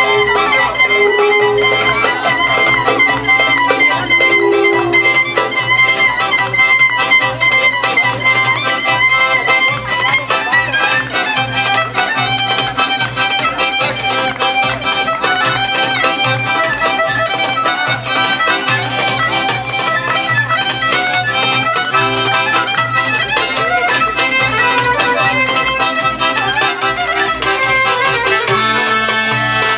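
Greek folk dance music played live on violin with accordion, at a steady dancing rhythm.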